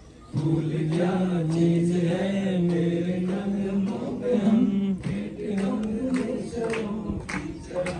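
A man's voice chanting into a microphone in long, drawn-out held notes, one after another.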